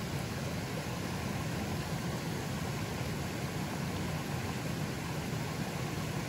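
A river flowing fairly strongly: a steady, even rush of water, fullest in the low range, with no breaks or single splashes.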